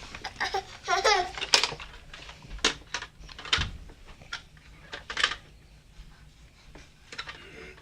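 Scattered sharp clicks and knocks of hard toy pieces being handled, likely toy trains and track. A brief high, wavering child's vocal sound comes about a second in.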